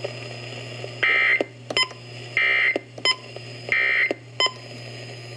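EAS end-of-message tones over a radio receiver: three short, loud bursts of SAME digital data tones about 1.3 seconds apart, marking the end of a broadcast severe thunderstorm warning. Faint short blips fall between the bursts.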